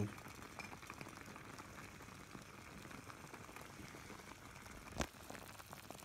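Stew simmering in a titanium kettle over a canister stove that has been turned down low. There is a faint steady hiss with many small bubbling pops, and a single sharp click about five seconds in.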